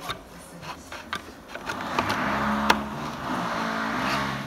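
Hard plastic clicks, with one sharp snap, as the panels of a plastic LEGO-compatible storage box are pressed together. A louder, steady low droning hum comes in about two seconds in and stops near the end.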